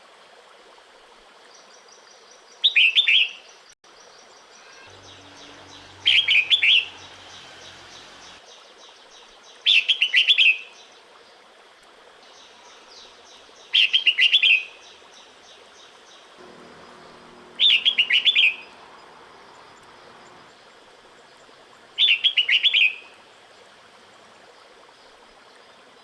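Female red-whiskered bulbul giving its breeding-season call to a male: a short, quick phrase of wavering notes, repeated six times at intervals of about four seconds.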